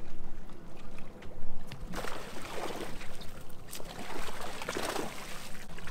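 A hooked fish thrashing and splashing at the water's surface beside the boat as it is reeled up on a jigging rod. The splashing starts about two seconds in and lasts about three seconds, over a steady low hum.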